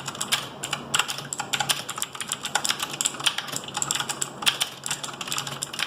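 Rapid typing on a Cosmic Byte CB-GK16 mechanical keyboard with blue switches: a dense, uneven stream of sharp clicky keystrokes.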